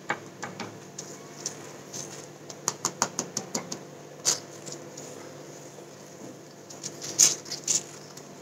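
Metal spoon tapping and scraping on a flatbread on an iron tawa as ghee is spread over it: scattered clicks, with a run of quick taps about three seconds in and another near the end.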